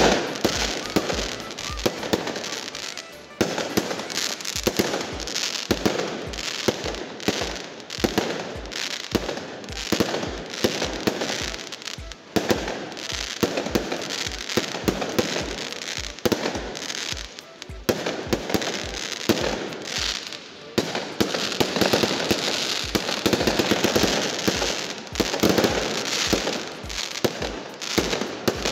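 Fireworks display: a rapid, almost unbroken series of aerial shell bangs and pops with crackle, several shots a second, easing only briefly a few times.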